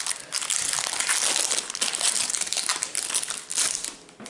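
Foil booster pack wrapper crinkling as it is pulled open and the cards are slid out, dying away near the end.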